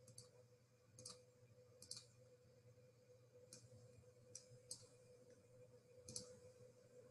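Near silence broken by several faint, irregular clicks, with a faint steady hum underneath.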